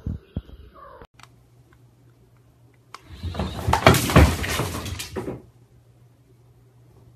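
A cat leaping and scrambling on a hard floor: a loud clattering crash lasting about two and a half seconds, starting about three seconds in. A few short knocks come at the start.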